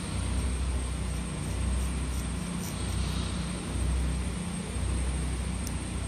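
A steady low rumble of background machinery or air noise that swells and dips, with a faint high steady whine and a few faint scratches of a scratchboard tool scraping the board's black coating.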